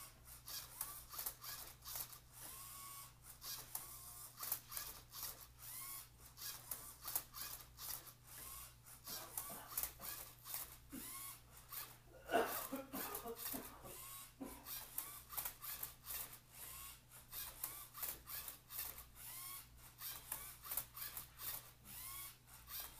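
Lego robot's electric motors repeatedly whining up and down as its arm and turntable turn a Rubik's cube, with clicks and clacks of the plastic parts and cube between moves. A louder stretch of whirring comes about twelve seconds in.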